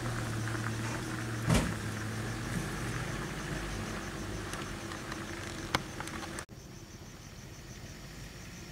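Dump truck's engine idling with a steady low hum while a tyre chain is fitted to the rear wheel, with two sharp knocks of the chain, the louder about a second and a half in and a smaller one near six seconds. About six and a half seconds in the sound drops abruptly to a quieter, even hiss.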